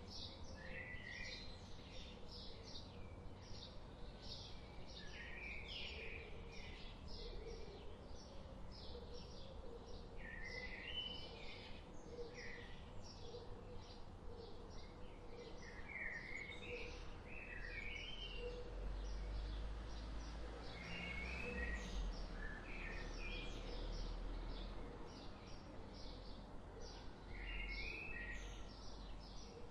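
Several wild birds calling in woodland: a steady run of quick high chirps, with short warbling song phrases every few seconds. A low rumble sits under them, stronger in the middle.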